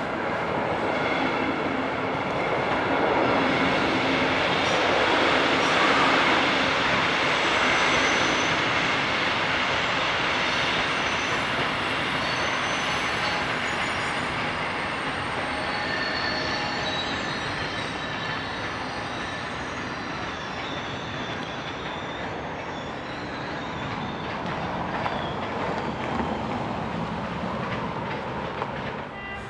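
Locomotive-hauled passenger train passing over a level crossing: wheels rolling on the rails with some high wheel squeal, loudest in the first several seconds as the locomotive and front coaches go by, then fading as the last coaches pass.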